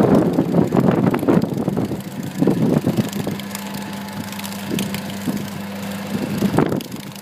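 JBS bale spreader running, a steady engine hum with irregular bursts of noise as chunks of partly frozen 4x4 square bale are broken up and blasted out, loudest in the first second or so.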